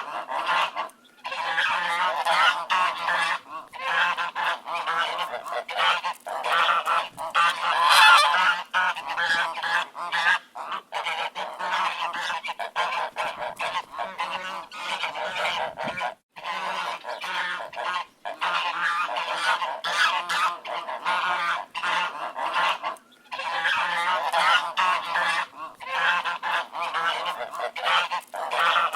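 A large flock of ducks quacking, many birds at once in a dense, overlapping chorus with only a few brief lulls.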